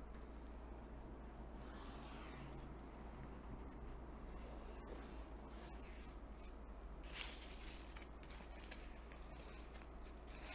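A hand rubbing and pressing wet gummed paper tape down onto damp watercolour paper and a wooden board: faint, intermittent soft swishes of skin sliding over wet paper, with a few light clicks about seven seconds in.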